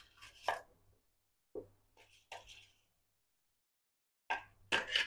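A few faint, scattered scrapes and taps as roasted cumin seeds are tipped from a plate into a mixer-grinder jar, with a quick run of them near the end.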